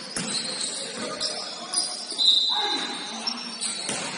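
Indoor court game: sneakers squeaking sharply on the floor, with the thuds of a bouncing ball and players' voices.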